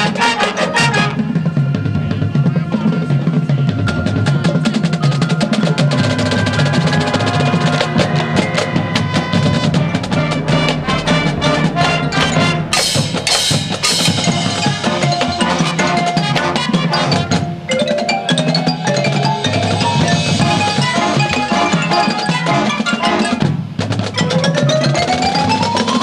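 Marching band playing a field show: brass and winds over a drumline, with front-ensemble marimbas and mallet percussion. Sharp crashing hits come a little past the middle, and a rising run starts near the end.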